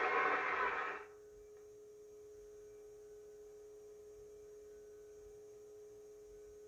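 Studio sound breaks off abruptly about a second in. A faint, steady electrical hum follows: one held pitch with overtones, running through a blank stretch of the recording.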